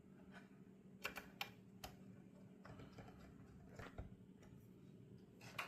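Faint, scattered clicks and taps of small screws and parts being handled and fitted into a car radio display assembly, a few close together about a second in and a few more near the middle and end, over a faint steady hum.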